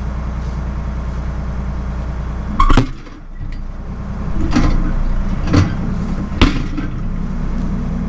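Tractor diesel engine idling steadily, with a loud metal clank about two and a half seconds in and three sharper metal knocks over the next few seconds as the harrow hitch is worked on by hand.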